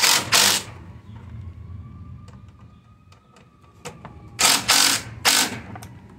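Ridgid cordless driver running a 10 mm socket on an extension in short loud bursts, two right at the start and three more about four and a half seconds in, tightening the bolts of a Kia Sorento's air filter housing down.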